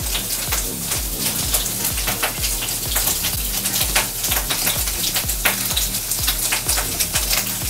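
Bacon and beef fat sizzling and crackling in a ridged grill pan over background music with a steady beat.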